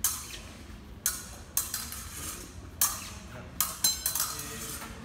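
Sharp clashes of fencing blades and lunging feet slapping the piste, about six or seven hits at irregular intervals. The blades ring briefly on one contact near four seconds in.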